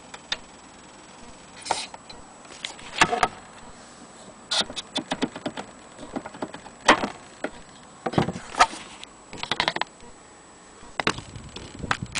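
Irregular clicks, taps and short metallic rattles from handling a gramophone's chromed sound box and tone arm by hand, with several quick rattling bursts.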